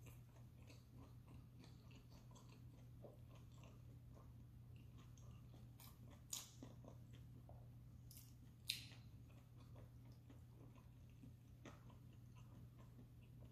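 Faint close-up chewing and soft crunching of a crisp-fried Korean seafood pancake (haemul-jeon). Two sharper clicks come about six and nine seconds in, over a steady faint low hum.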